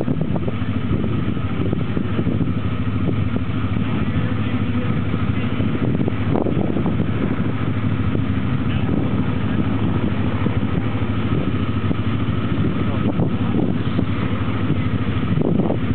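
A steady engine drone holding one low pitch, with no rise or fall in loudness.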